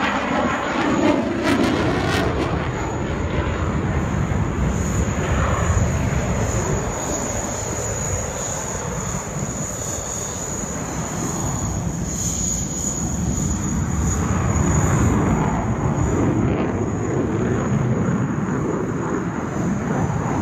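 Eurofighter Typhoon jet fighter's twin turbofan engines during a display flight: continuous loud jet noise that eases off about halfway through and swells again later, with a thin steady high whine on top.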